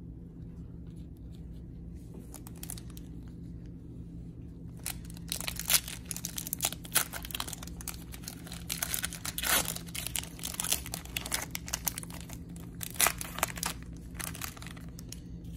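Plastic trading-card pack wrapper being torn open and crinkled by gloved hands: a dense run of sharp rips and crinkles starting about five seconds in and dying away near the end.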